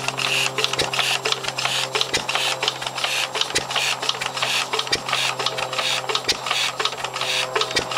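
Ruston Hornsby SPB 3 HP single-cylinder stationary engine running steadily, with a fast, even clatter over a steady low hum.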